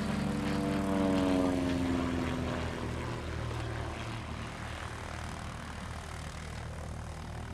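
Single-engine propeller aircraft's piston engine droning as it flies past. The pitch falls over the first few seconds as the plane passes, loudest about a second in, then it settles into a steadier, quieter drone.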